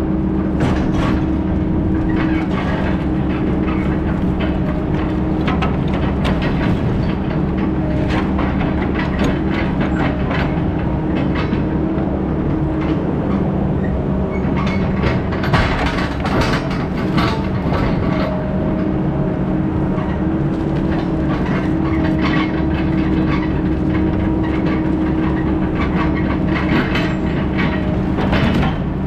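Heavy diesel equipment running steadily under load, its engine note holding with small shifts, over constant rattling and clanking.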